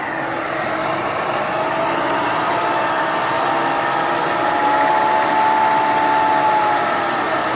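Milling machine running with a steady mechanical hum. Its tones drift slightly up in pitch about halfway through and ease back down near the end.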